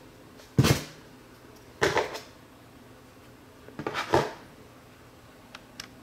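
Handling knocks and clatter as a laptop memory stick and a small screwdriver are put down on a hard desk: three sharp knocks a second or two apart, then a few faint ticks near the end.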